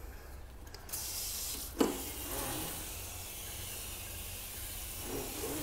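Water running from a pull-down sink faucet onto the moss and soil of a potted plant: a steady hiss that starts about a second in. A brief knock just under two seconds in.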